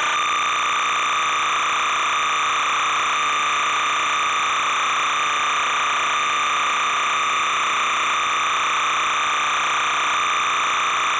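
Steady, unchanging hiss with a high buzzing tone through it, the same level throughout: static on the soundtrack rather than any sound of the game.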